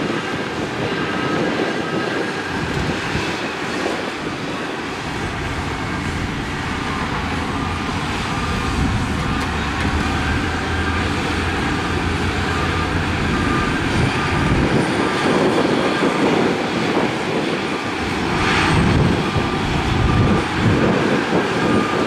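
Heavy earthmoving machinery at work: crawler bulldozer and dump truck diesel engines running under load with clattering tracks, and a reversing alarm beeping steadily through much of it.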